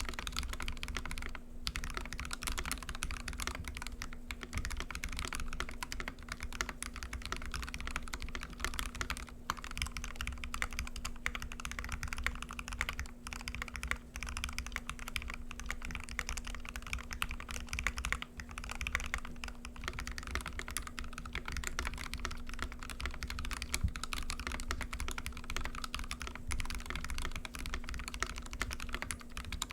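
Continuous fast typing on a custom KBD67 mechanical keyboard with a brass plate, lubed Gateron Ink linear switches and GMK keycaps: a dense run of key clacks with no pauses of more than a moment.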